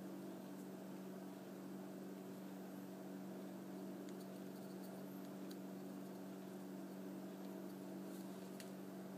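Steady low electrical hum with faint hiss and a few faint ticks, while a soldering iron is held on a wire joint.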